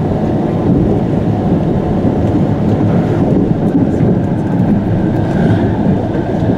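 Running noise inside a Chiba Urban Monorail Urban Flyer 0 series suspended monorail car under way: a steady low rumble of the rubber-tyred bogies in the overhead guideway. A faint high whine joins about halfway through.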